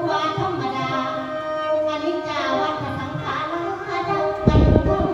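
A woman singing Isan lam into a microphone, her voice gliding over the steady drone of a khaen (bamboo mouth organ). A short loud low thump comes about four and a half seconds in.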